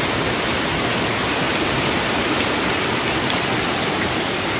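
Heavy rain pouring down onto flooded ground and standing water: a loud, steady, even rush of noise.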